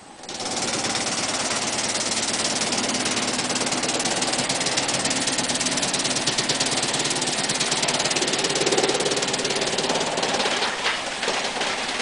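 Drum wood chipper chipping wood: a loud, dense, rapid rattling clatter that comes in abruptly and holds steady, with a few sharper knocks near the end.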